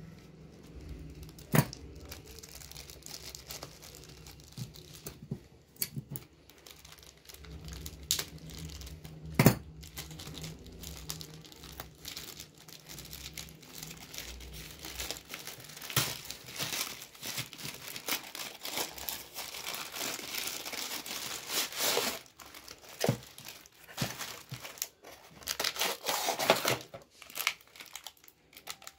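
Plastic packaging crinkling and rustling as a phone case is unpacked and handled, with sharp clicks and taps scattered through. A low steady hum runs under the first half and stops about halfway.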